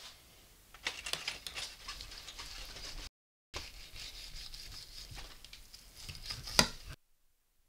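Carving knife sawing through the crisp crust of a roast joint, with dense crackling and scraping; one sharp click near the end, after which the sound stops.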